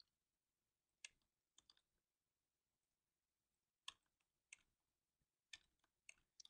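Faint computer mouse clicks, about eight or nine scattered sharp ticks, over near silence.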